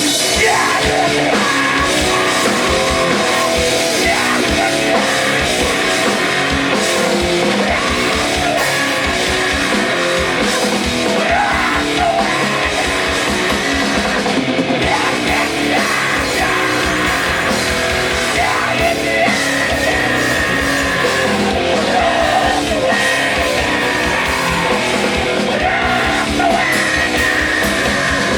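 A loud live heavy rock band playing: distorted guitars and fast, driving drums, with yelled vocals.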